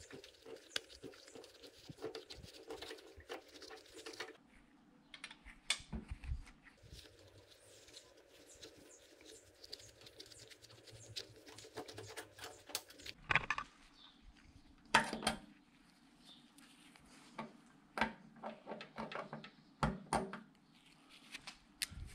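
Hand-tool work on a motorcycle: a hex key and small bolts giving scattered light metallic clicks and taps amid glove rustling, with denser runs of sharper clicks about halfway through and again near the end.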